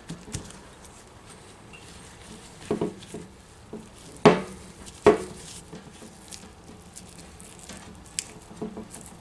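Silicone spatula stirring crumbly cookie dough in a white mixing bowl: soft scraping and squishing, with a few sharp knocks of the spatula against the bowl, the loudest about four and five seconds in.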